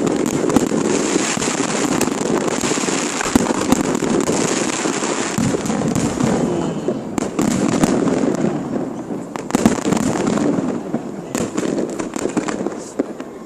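Fireworks display going off: a dense, continuous crackle of many small bursts and sharp bangs, easing off and dropping in level near the end.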